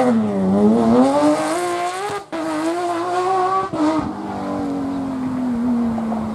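Porsche 911 rally car's flat-six engine revving hard, its pitch rising and falling as it goes through the gears. The sound breaks off briefly twice, a little past two seconds and nearly four seconds in. After that the engine holds a steadier, slowly falling note.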